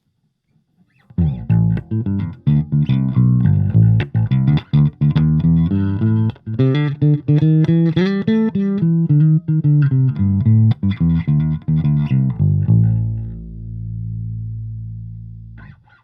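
Electric bass played through a Fender Rumble 25 bass combo amp: a quick run of plucked notes starting about a second in, ending on a low note left to ring and fade away.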